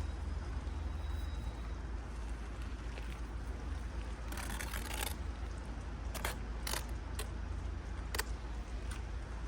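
A few short scrapes and clinks, with one longer scrape about four seconds in, over a steady low rumble.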